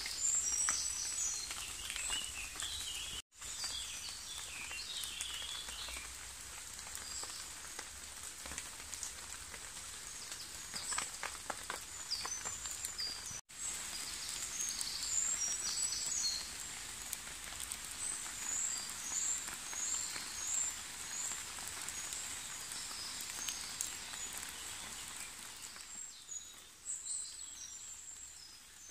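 Steady rain falling in woodland, with birds singing in short high phrases over it. The sound drops out for an instant twice, and grows quieter near the end.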